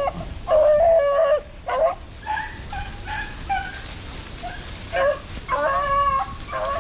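Rabbit-hunting hounds baying in repeated drawn-out bawls, sometimes overlapping: the pack giving tongue as it runs a rabbit's trail. Steady wind rumble on the microphone underneath.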